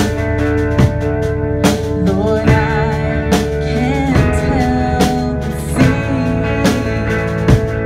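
Live band music: electric guitars and a drum kit keeping a steady beat, with a voice singing a melody through the middle.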